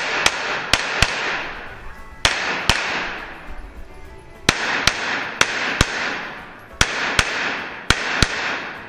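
Glock 17 9mm pistol fired in quick pairs, about fourteen shots in seven doubles, each shot ringing out in the reverberation of an indoor range.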